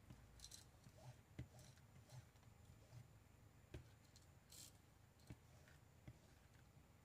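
Near silence with a few faint, scattered clicks and rustles: a metal ball chain being handled and dabbed with an ink pad.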